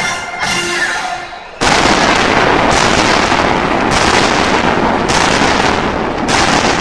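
Fireworks going off: a dense, loud crackling and banging that starts suddenly about a second and a half in, with a new burst roughly once a second.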